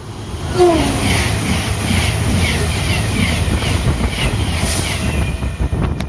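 A train passing close by at speed: a loud rushing rumble that builds up sharply in the first second, with a short pitched note near the start and a row of light repeated squeaks or ticks, about two a second, running through most of the pass.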